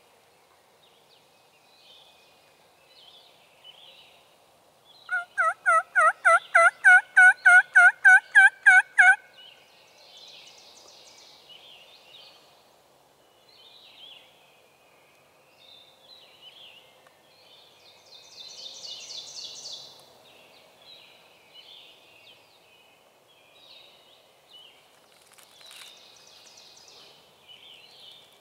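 A turkey's yelps: a run of about fifteen loud, evenly spaced notes over some four seconds. Small birds chirp faintly before and after it.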